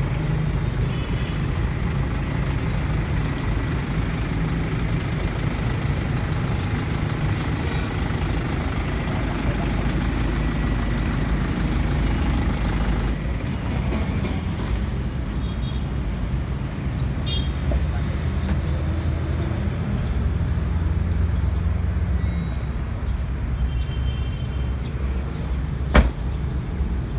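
Hyundai Mighty 2018 truck's diesel engine idling steadily, with one sharp click near the end.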